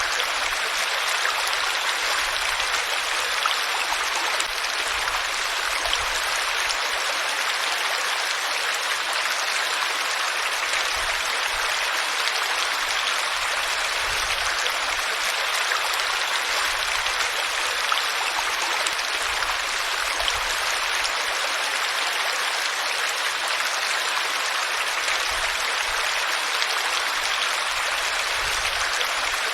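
Flowing water: a steady, even rush of a stream.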